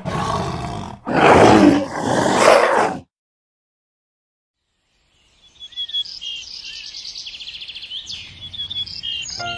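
A cat's two loud, rough cries, about one and two seconds long. After a few seconds of silence, small birds chirp and trill.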